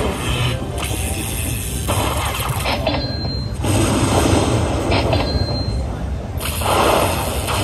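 Aristocrat Heart Throb Lightning Link slot machine tallying its hold-and-spin bonus: lightning-strike crackles and booms over the game's music, a new surge as each heart's prize is added to the climbing win meter.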